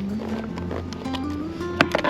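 Background instrumental music with a slow, stepping melody, and a sharp click near the end.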